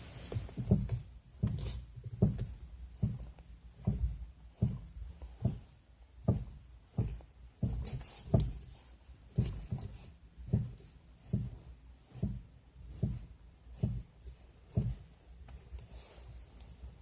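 Steering of a 2018 Chevrolet Niva knocking over and over, about one to two dull knocks a second at uneven spacing. It is a steering-linkage knock with noticeable play, which new alignment and a new idler arm have not cured.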